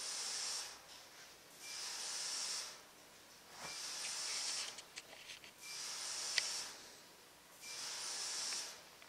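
Ultrasonic sieve mesh, driven at about 37 kHz, hissing in pulses as it shakes granular material through the screen: about a second of high hiss every two seconds. A few faint ticks and one sharp click come about two-thirds of the way through.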